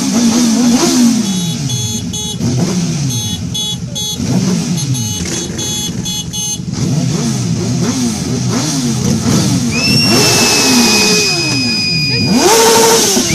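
Motorcycle engines revved again and again, each rev falling away about once a second, with a high steady squeal coming in about ten seconds in.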